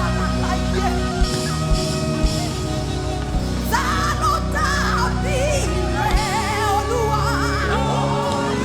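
Live worship band music: sustained bass and keyboard chords under a few drum hits, with a wavering melodic lead line coming in about four seconds in.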